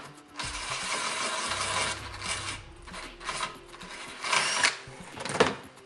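Cordless drill with a step bit cutting through a fiberglass fairing panel to enlarge a fastener hole. It grinds for about two seconds, then cuts in shorter bursts near the end.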